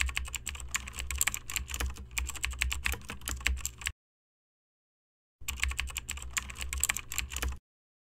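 Computer keyboard typing, rapid key clicks in two runs: about four seconds of typing, a pause of about a second and a half, then about two seconds more.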